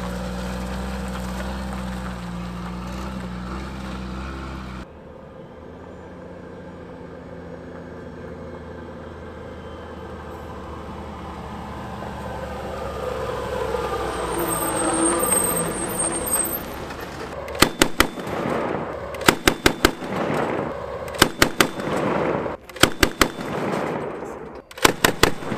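Stryker armoured vehicle's diesel engine running steadily, then after an abrupt change a louder engine sound rising in pitch. From about two-thirds of the way in, repeated short bursts of automatic fire from the vehicle's remote-weapon-station gun, several rounds per burst.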